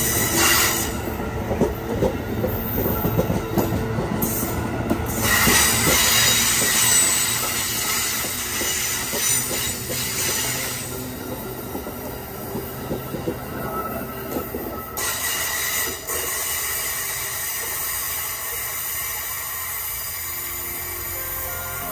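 Amtrak passenger train's stainless-steel coaches rolling past on the rails: a steady rumble of wheels with some clickety-clack and high wheel squeal at times. It grows fainter in the second half as the last car passes and the train draws away.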